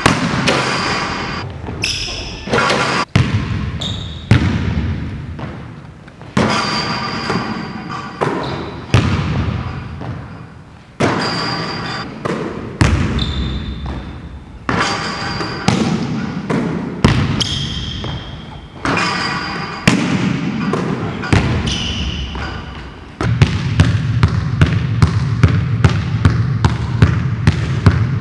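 Basketballs bouncing on a hardwood gym floor, with sneaker squeaks and gym echo, in short segments of a workout. In the last five seconds two balls are dribbled at once, a steady run of about two to three bounces a second.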